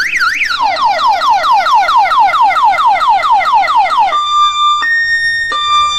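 Electronic siren played loud through a large outdoor sound system, cycling like a car alarm. A fast up-and-down warble gives way to rapid falling chirps, about four a second. From about four seconds in it switches to a two-tone beep that alternates high and low roughly every two-thirds of a second.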